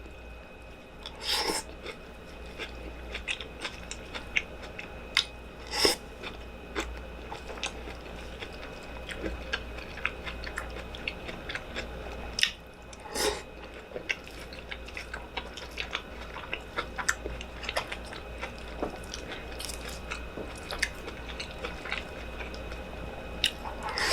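Close-miked chewing and biting of food, with frequent sharp, irregular crunches and mouth clicks, over a steady low hum.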